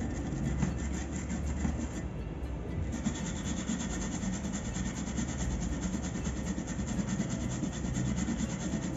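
Toothbrush bristles scrubbing a phone mainboard, a continuous rubbing that fluctuates with the strokes, as corrosion residue from water damage is brushed off the board.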